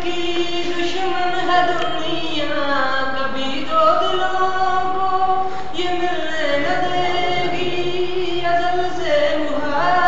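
Singing: a slow melody of long held notes that slide from one pitch to the next, with no clear instrumental beat.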